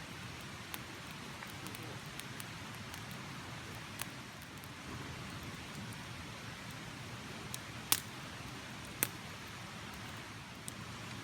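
Wood fire burning in a rocket stove made of scrap wooden rafters: a steady hiss with scattered sharp crackles and pops, the two loudest about eight and nine seconds in.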